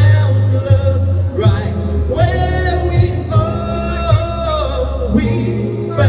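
A man singing long held, wordless notes that bend and slide in pitch, over a backing track with a steady deep bass.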